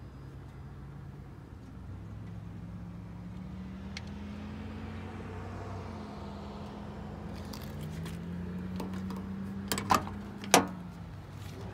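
A motor vehicle's engine running, its low hum rising slowly in pitch twice, with a few sharp clicks near the end, one of them the loudest sound.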